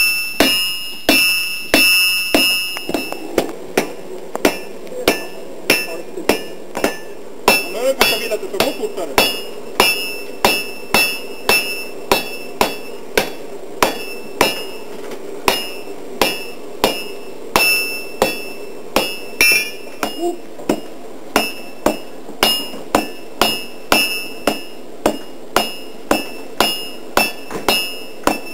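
Hammer blows on hot iron on an anvil, about two a second, each with a bright metallic ring: hand-forging at the bloomery.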